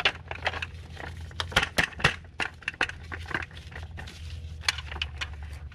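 Hard plastic clicks and knocks from handling a C-Tug kayak trolley's plastic frame, wheel cradles and strap, a dozen or more sharp taps with the loudest about a second and a half and two seconds in, over a steady low hum.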